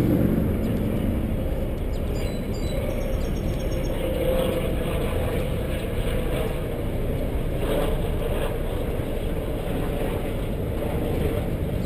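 Steady rumbling wind and riding noise on a bicycle-mounted microphone during a ride, with a passing vehicle's hum fading out about a second in.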